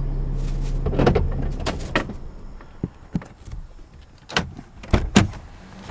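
Vehicle engine idling, then shut off about a second and a half in, followed by a series of sharp clicks and clunks.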